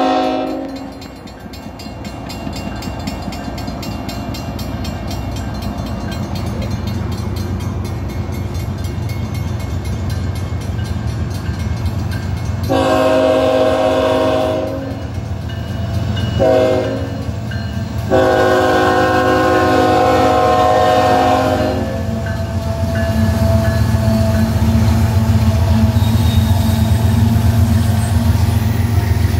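Union Pacific diesel-electric freight locomotives running with a steady low engine rumble as they approach; about 13 seconds in the locomotive horn sounds a long blast, a short blast and a long blast, the grade-crossing warning. Near the end the engine rumble grows louder as the locomotives pass close by.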